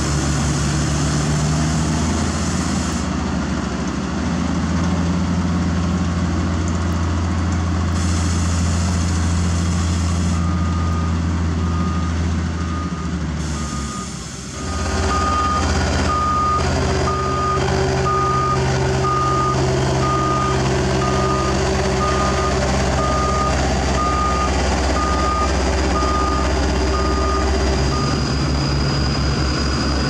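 Caterpillar tandem asphalt roller's diesel engine running steadily. From about a third of the way in, a reversing alarm beeps at an even pace, about one and a half beeps a second, stopping shortly before the end.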